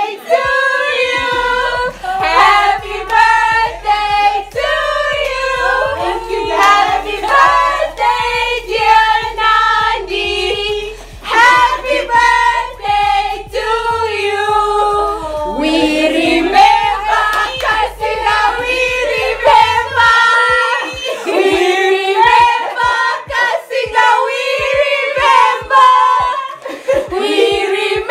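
A group of women singing together, with hand claps running through the song.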